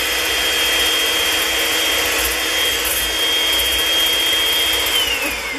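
Electric hand mixer running at a steady speed, its motor whining high over the whir of the beaters in a stainless steel bowl. Near the end it is switched off and the whine falls away as the motor winds down.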